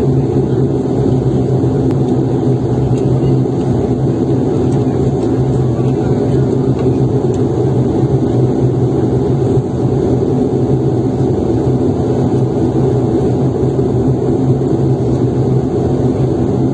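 Airliner on its takeoff roll, heard from inside the cabin: the engines at takeoff power and the main-gear tyres rumbling on the runway, a loud, steady, low roar.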